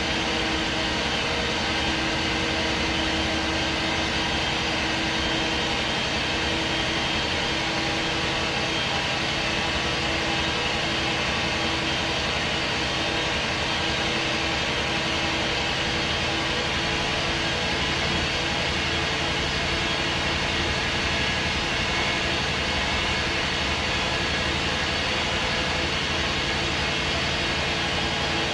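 MAN SD202 double-decker bus running steadily, its MAN D2566 six-cylinder diesel engine holding an even speed with a constant hum and hiss.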